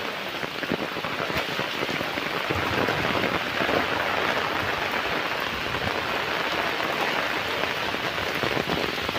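Steady rain with a fine patter of drops.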